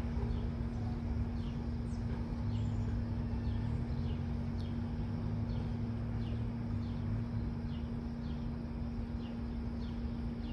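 A bird chirping over and over, short falling chirps a little under two a second, over a steady low hum and rumble.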